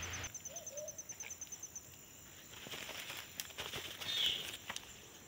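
Faint forest ambience with a short bird call about four seconds in, and scattered clicks and rustles of handling close by as a hand reaches toward the camera. A fast, even, high pulsing fades out about two seconds in.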